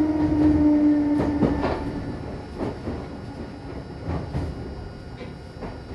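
Meitetsu electric train heard from inside the car as it slows, coming in to stop: a slightly falling motor whine fades out about two seconds in, then the wheels click over rail joints at uneven spacing as the running noise dies down.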